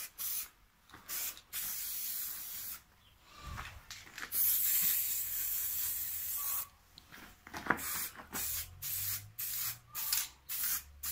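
Aerosol spray-paint can hissing in bursts: two longer sprays of about two seconds each, then a run of short, quick squirts in the second half.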